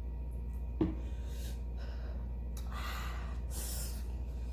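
Sharp breathy intakes and sniffs from someone eating very spicy noodles, with a short falling squeak-like sound about a second in. A steady low hum runs underneath.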